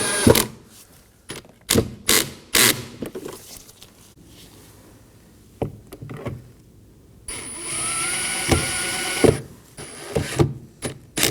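Power screwdriver driving Phillips head screws into a car's plastic door panel. One run of the driver ends just after the start and a second runs for about two seconds about seven seconds in, with sharp clicks and knocks of screws and panel being handled in between.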